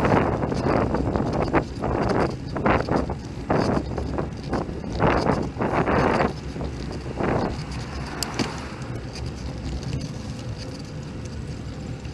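Wind buffeting the microphone of a bicycle-mounted camera while riding. It comes in loud, irregular gusts for the first seven seconds or so, then settles into a quieter, steadier rush.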